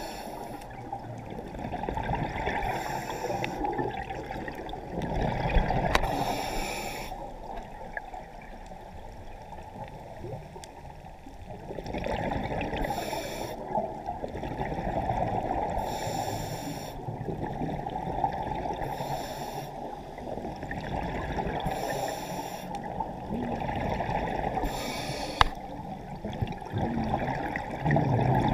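A scuba diver breathing through a regulator underwater. There is a short hiss with each inhalation about every three seconds, and a rumble of exhaled bubbles between them.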